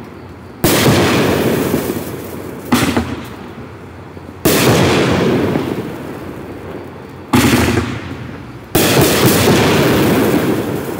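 Black Cat Kingdom 16-shot fireworks cake firing: five sharp bangs of aerial bursts one to three seconds apart, each dying away over a second or more.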